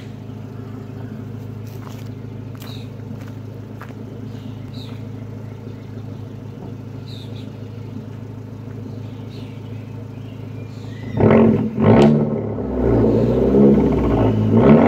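2017 Abarth 124 Spider's 1.4-litre turbocharged four-cylinder idling steadily through a muffler-delete exhaust, then revved hard twice about eleven seconds in and revved up and down repeatedly near the end.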